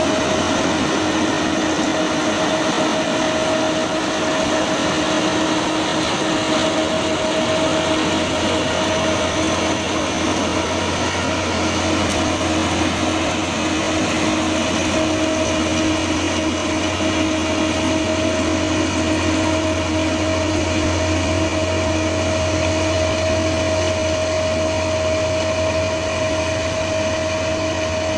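Railway track-maintenance machine running, a steady mechanical drone with a constant whine that holds unchanged throughout.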